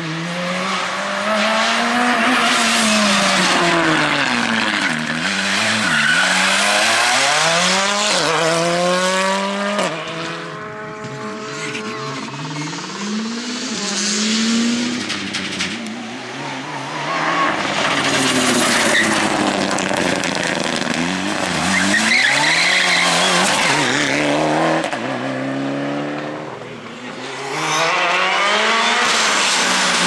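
Several rally cars in turn driving hard through a tarmac bend: their engines rev up and drop back in pitch through the gear changes as each one passes, with tyre squeal.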